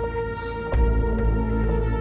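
Background music: sustained ambient chords, with a deep bass note swelling in under a second in.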